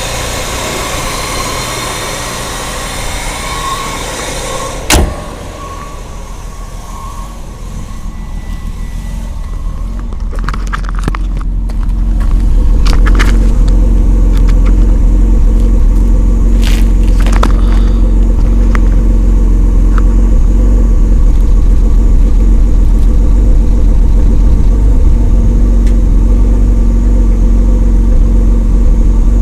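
1994 Mitsubishi Diamante's V6 engine running, with one sharp knock about five seconds in; from about twelve seconds a loud, low rumble takes over and holds steady. The engine is misfiring at random and shaking, with worn engine mounts, despite new spark plugs, wires and fuel filter.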